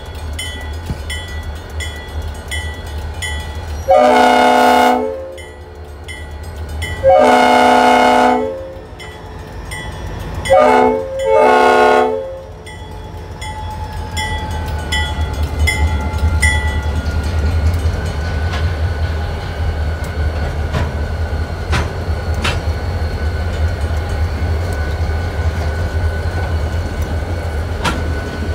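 Leslie RS5T five-chime air horn on EMD GP40 No. 381 blowing the grade-crossing signal, long, long, short, long, over a crossing bell dinging about twice a second. The locomotives' turbocharged V16 diesel engines then run loud as they pass close by, and the bell stops a few seconds later.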